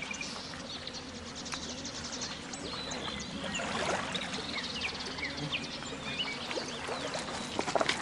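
Outdoor shoreline ambience: scattered short bird chirps over a steady watery hiss, with a quick run of clicks near the end like stones knocking.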